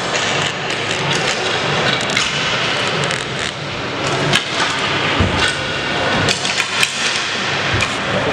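Floor hockey play: irregular sharp clacks of hockey sticks striking the ball, the hard rink floor and each other, over a steady bustle of players moving. A few louder clacks come in the middle and second half.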